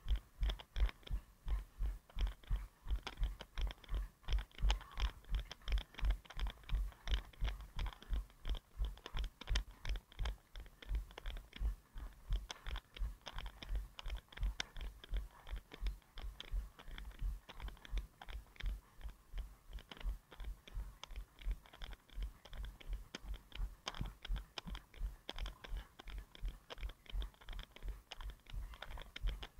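A runner's footfalls at an even running cadence of about three strides a second, each one a dull thud with a light click, carried through the body to a head-mounted action camera.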